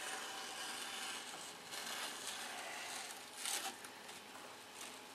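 Faint rustling of a person moving about over a low room hiss, with a slightly louder brush about three and a half seconds in.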